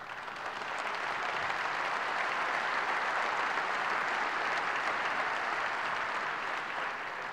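A large audience in a theatre applauding. The clapping swells over the first couple of seconds, holds steady, then eases slightly near the end.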